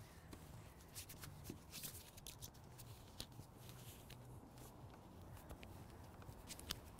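Faint rustling of a grass box's mesh fabric bag and small scattered clicks as its plastic clips are worked onto the metal frame by hand.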